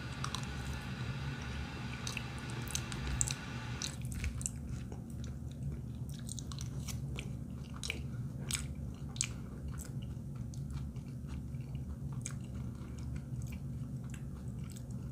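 A person chewing a mouthful of brisket hash, with faint scattered mouth clicks and smacks. A steady low hum sits underneath.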